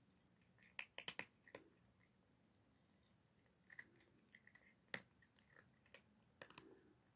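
Cat crunching dry kibble: faint, irregular crunches coming in small clusters with short pauses between.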